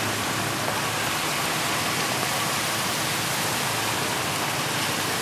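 Steady, even hiss of background noise, with no distinct knocks, chops or pounding.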